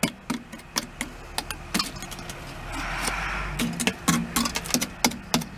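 Screwdriver tip jabbing and tapping at the rusted steel bottom of an Akorn Jr kamado grill: a string of sharp taps and clicks, with a short scraping rasp about halfway through. It is a poke test for how much sound metal is left around the rust hole.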